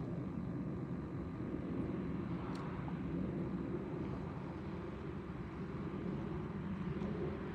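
Steady low outdoor rumble, with a faint click about two and a half seconds in.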